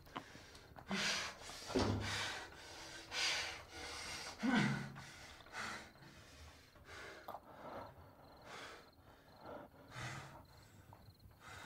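A man breathing heavily and gasping, sharp breaths coming every second or so and easing off in the second half. A couple of the breaths carry a short groan that falls in pitch.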